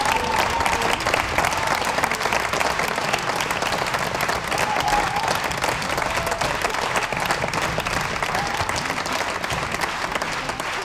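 Audience applauding: dense, steady clapping that eases slightly near the end.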